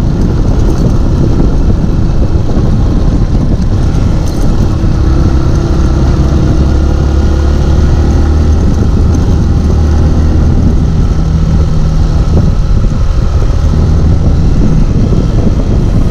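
Motorcycle being ridden on the road: a loud, steady rush of engine and wind noise, with a low engine hum that grows stronger in the middle.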